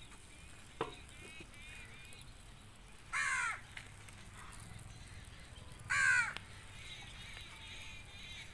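A crow cawing twice, about three seconds apart, each time a single harsh call, with faint chirps of small birds between the calls.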